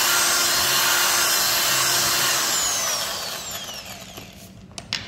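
Corded electric drill boring a countersink recess into a laminated wood panel, running steadily. About two and a half seconds in the trigger is released and the motor winds down with a falling whine.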